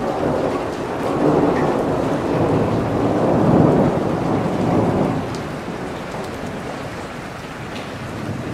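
Steady rain pouring, with a long roll of thunder that swells, peaks about halfway through, and fades away by about five seconds in.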